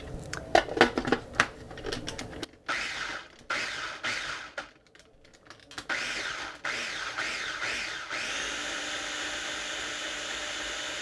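KitchenAid mini food chopper pureeing thick cooked hot sauce. A few knocks and clatter come first, then two short pulses of the motor about three and four seconds in. From about six seconds the motor runs continuously, its pitch shifting at first, then settling into a steady whir.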